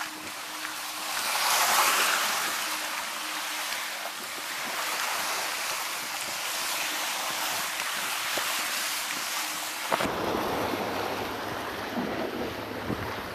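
Small waves surging and washing over rock ledges, swelling about two seconds in. From about ten seconds in, wind buffeting the microphone adds a low rumble.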